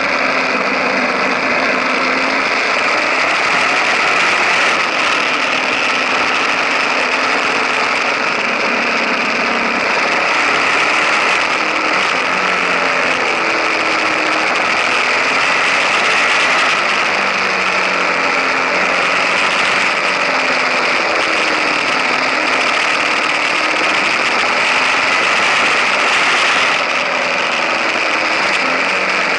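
KTM 1050 Adventure's V-twin engine running on the move, its pitch rising and falling, under a steady rush of wind and road noise on a low-mounted action camera.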